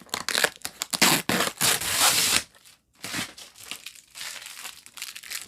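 A parcel's packaging being torn open and crinkled by hand: a run of quick ripping and rustling strokes, loudest and densest about one to two and a half seconds in, then quieter rustling after a brief pause.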